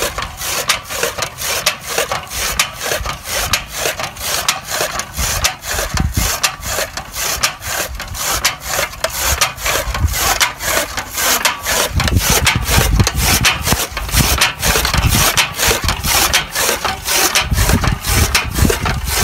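Hand-cranked chaff cutter with a large flywheel chopping green fodder: a fast, even rhythm of sharp chopping strokes as the blades slice through the bundles.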